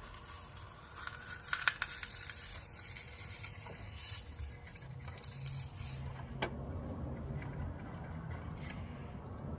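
Lead flashing melting into a pot of molten lead: faint scraping and crackling over a low steady rumble, with a few sharp clicks and a hiss that stops about six seconds in.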